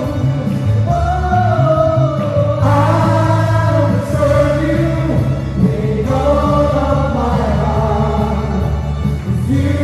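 Live worship band playing a praise song: several voices singing together over electric bass and keyboard, with a strong, steady bass line.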